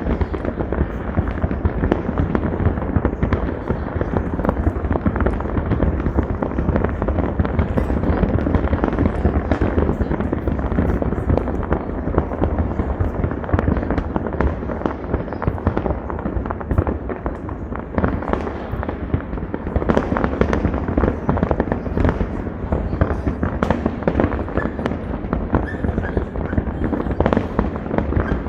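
Fireworks going off in a dense, continuous barrage: many overlapping bangs and crackles, with no pause.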